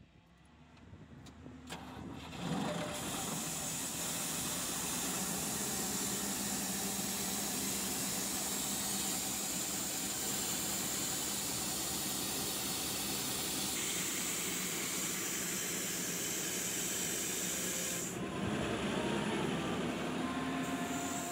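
Doosan portable diesel air compressor starting up: after a click its engine comes in about two seconds in and runs steadily under a strong hiss. About three seconds before the end the hiss drops away and the engine note changes.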